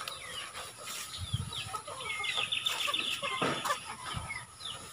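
Chickens clucking and squawking in short high calls, with a quick run of about ten repeated notes around the middle. A knock about three and a half seconds in.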